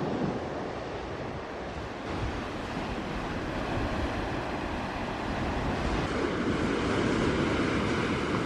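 Ocean surf washing onto a beach, a steady rush that swells louder in the last few seconds.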